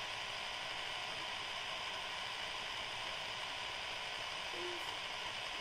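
Small electric motor of a toy tornado tower running steadily at its highest speed, spinning water into a vortex: an even whir mixed with swirling water.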